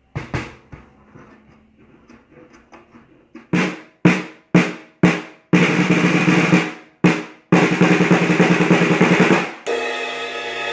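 Griffin snare drum, freshly tuned with its snares adjusted, played with sticks: a few single strokes, then two rolls. Near the end a cymbal crash rings on.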